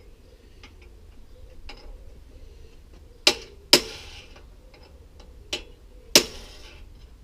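Hammer striking a steel drift punch to knock a part off a bicycle crank: four sharp metallic blows, two close together about three seconds in, then a lighter one and a final hard one that rings on. Faint small clicks in between.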